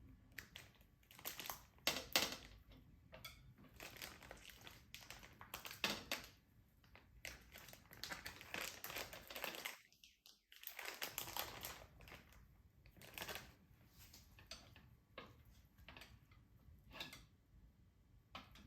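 Faint, irregular handling sounds: scattered clicks and taps with crinkling between them, and a brief drop to silence about ten seconds in.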